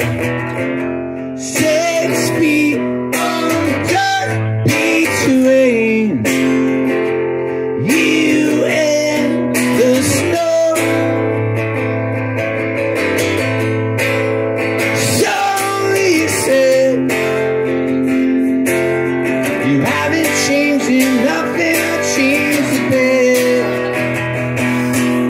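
Acoustic guitar strummed, with a man singing a song over it.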